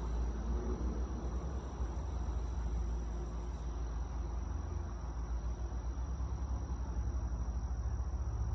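Insects droning with one steady high-pitched tone, over a low rumble of wind on the microphone.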